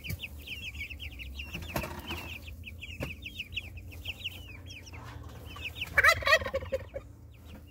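Young chickens peeping steadily in quick, high, repeated peeps, with a louder call about six seconds in.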